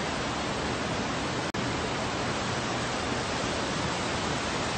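Torrent of floodwater rushing through a parking garage: a steady, dense rushing noise, broken by a split-second gap about a second and a half in.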